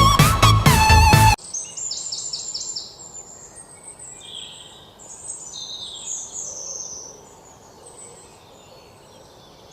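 Electronic background music that cuts off suddenly about a second and a half in, leaving birds chirping and calling over faint outdoor noise.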